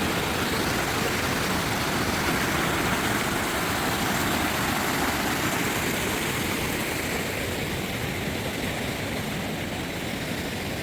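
Creek waterfall dropping about 25 feet, rushing steadily, growing slightly fainter toward the end.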